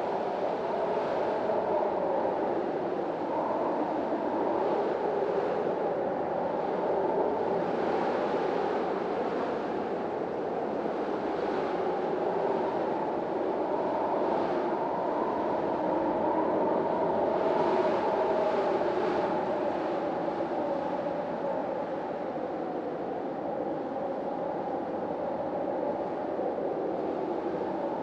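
Hurricane-force storm wind howling, its pitch wavering, with gusts that swell and ease every few seconds.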